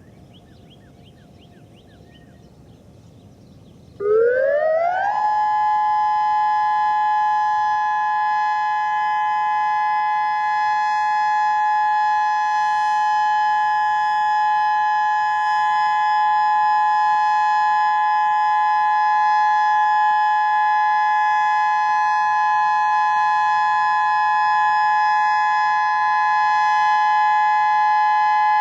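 Whelen 2016 outdoor warning siren sounding its steady alert for a monthly test: about four seconds in it starts suddenly with a quick rising glide, then holds a loud, steady two-note tone.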